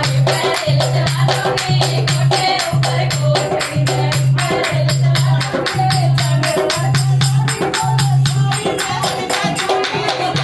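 Village folk dance song: a dholak and jingling percussion play a fast, even rhythm under group singing by women.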